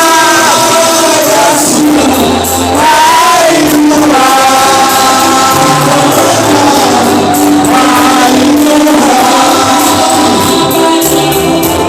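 Gospel worship music: a choir singing over a steady band accompaniment with bass.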